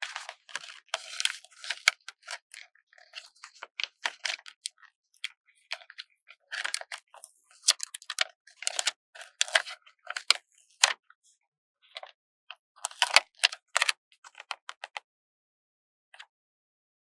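Paper stickers being peeled slowly off their backing sheet: irregular crackling and rustling of paper in short bursts, stopping about two seconds before the end.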